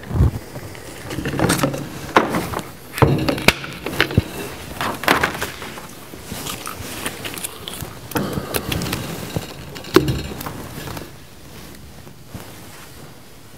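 A hand PEX pipe cutter clips through plastic PEX tubing, followed by scattered sharp clicks and knocks as the cut pipe and a brass push-fit fitting are handled.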